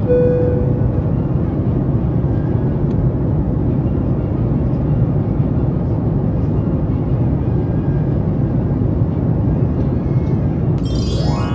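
Steady rumble and rush of jet airliner cabin noise, engines running. A short tone sounds at the very start, and a quick rising sweep of tone near the end.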